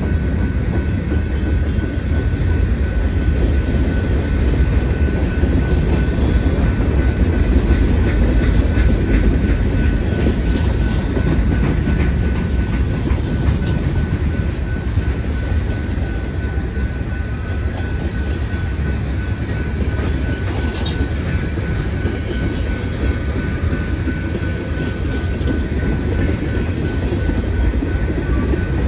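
Freight cars of a BNSF manifest train rolling past: steel wheels rumbling and clacking on the rails, with a thin steady high-pitched tone over it.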